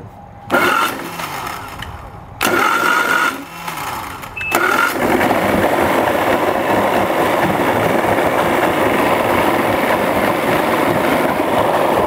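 Johnson/Evinrude two-stroke outboard engine cranked over in a few uneven bursts, catching about five seconds in and then running steadily. It misfires intermittently on several cylinders, a sign of a fault in the ignition system.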